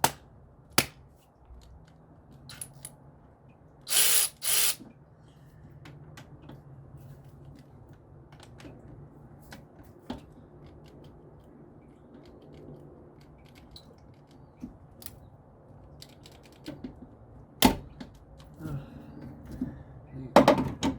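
A power tool run in two short bursts, about four seconds in, while parts come off the engine of a truck, with scattered clinks and knocks of tools and parts through the rest.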